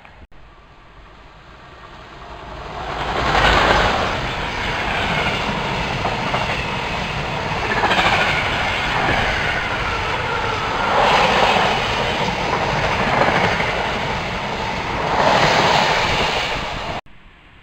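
A train passing through the station on the nearby track, its wheels clattering over the rails. The noise builds over the first few seconds, stays loud in repeated swells, then cuts off suddenly near the end.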